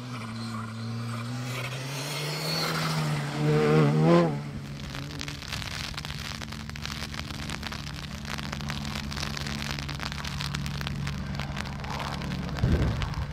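Light single-engine helicopter of the AS350 Écureuil type flying low, a steady turbine and rotor drone with fast rotor beating. About three to four seconds in, a louder engine note wavers up and down and peaks briefly, and a short loud low rumble comes near the end.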